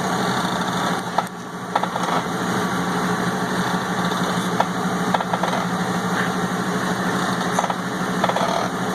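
2000 Ford Excursion running with a steady engine hum, and scattered faint clicks and pops about every second or so. These are likely the truck's cracking and popping noise from under the body.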